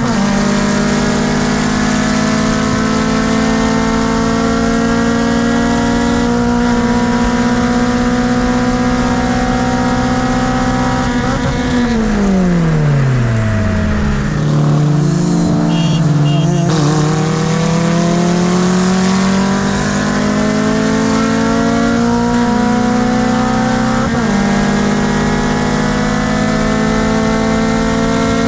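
Honda K24 four-cylinder in an EP3 Civic running hard under load. Its note is broken by gear changes, and about halfway through the revs fall away steeply, sit low for a couple of seconds, then climb again through the gears.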